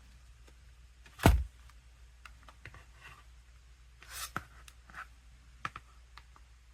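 Small plastic keys and buttons of a Fosmon mini Bluetooth keyboard clicking under the fingers, scattered and irregular. A loud knock of the handled keyboard comes about a second in, and a brief rustle about four seconds in.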